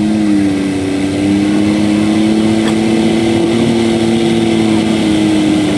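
Diesel engine of a garden pulling tractor at full throttle under load as it pulls a weight sled. It holds a steady high pitch.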